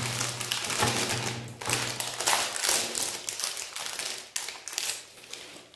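Foil ice cream bar wrapper crinkling and tearing as it is peeled open by hand: a dense, irregular run of crackles and rustles that stops abruptly near the end.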